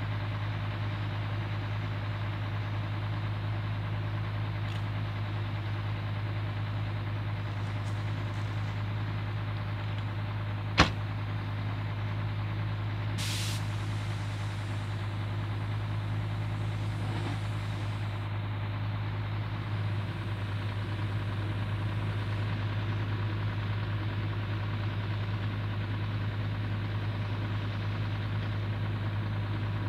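Rail motor 402's twin 6-71 diesel engines idling with a steady low hum. A single sharp click about eleven seconds in is the loudest sound, and a short hiss of air follows a couple of seconds later.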